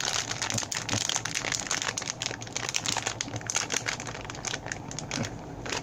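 Clear plastic bag crinkling and crackling as it is handled and folded in the hands: a dense run of sharp crackles.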